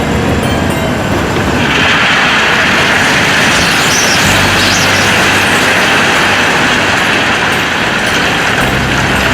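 Loud, steady vehicle noise: a low rumble with a rushing hiss that swells in about two seconds in.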